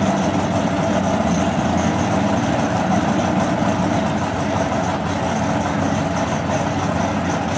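Drag car's engine idling steadily as the car creeps up to the starting line to stage.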